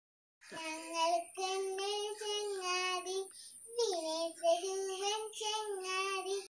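A young girl singing a Malayalam children's hymn about Jesus as a friend, unaccompanied, in long held notes with a short break about halfway through. The singing cuts off abruptly near the end.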